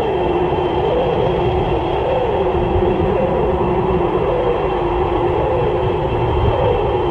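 Hedorah monster sound effect: a loud, steady rumble under a warbling tone that wavers up and down about once a second.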